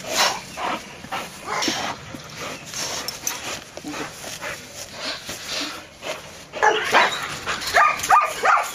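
German shepherd dog: low scuffling and scattered noises, then, from about two-thirds in, a loud run of quick, high-pitched whines and yips, several a second.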